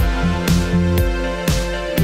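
Background music with a steady beat, about two beats a second, over a sustained bass line.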